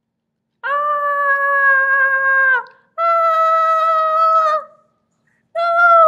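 A high-pitched voice wailing 'aaah' in long held notes: two of about two seconds each, and a third starting near the end.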